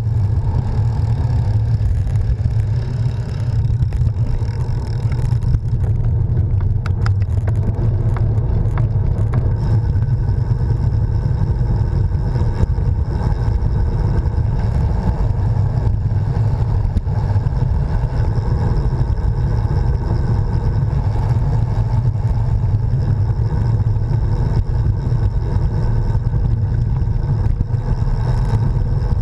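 Steady low rumble of wind buffeting a handlebar-mounted action camera, mixed with tyre noise of a road bike rolling on tarmac. A few short clicks come about seven to nine seconds in.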